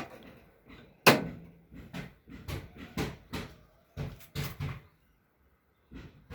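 Knocking and clattering of hard parts being handled, with one sharp bang about a second in followed by a run of lighter irregular knocks, and a pause of about a second near the end.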